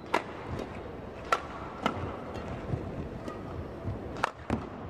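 Badminton rally: racket strings hitting a shuttlecock in sharp, irregular cracks, about six of them half a second to a second apart, over the steady murmur of an indoor arena.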